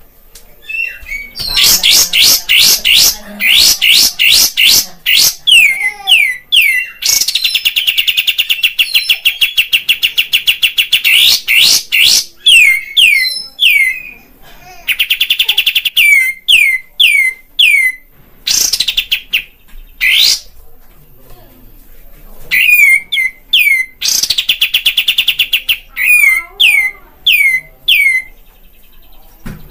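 Olive-winged bulbul (kapas tembak) singing loudly: quick runs of sharp downward-sweeping notes broken by long, fast rattling trills, with a couple of brief pauses between phrases.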